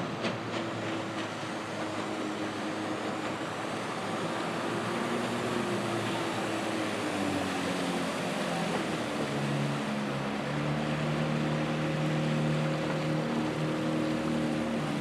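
Outboard motor pushing a boat across the water, its engine note dropping a little partway through and then holding steady, over the wash of the water. A few sharp clicks right at the start.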